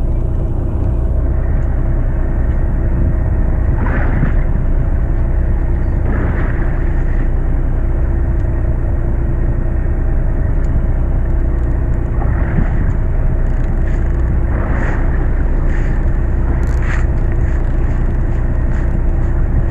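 Fishing boat's engine running steadily with a low hum, while waves slap against the hull several times.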